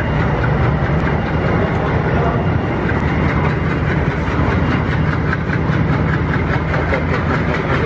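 Passenger train running at speed, heard from an open coach doorway: steady wheel-and-rail roar with fast, even clickety-clack over the rail joints, growing clearer through the second half, over the low drone of the hauling WDM3D ALCO diesel locomotive.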